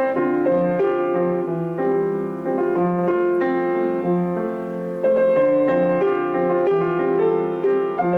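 Piano music: a steady run of notes over repeated low notes.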